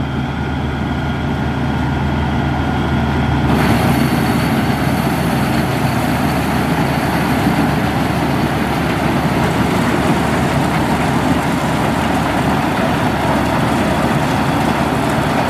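Maxxi Bimo 102 corn combine harvester running with a steady engine hum; about three and a half seconds in, a much louder, rushing mechanical noise from its corn header and threshing works cuts in suddenly and runs on steadily as it drives into the corn.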